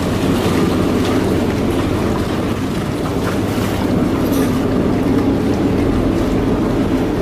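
Harbour ferry's engine running with a steady low rumble while the boat lies alongside a landing pontoon.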